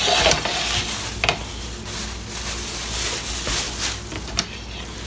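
Plastic bag rustling and crinkling as it is handled over a baking tray, with a few sharp clicks about a second in and near the end.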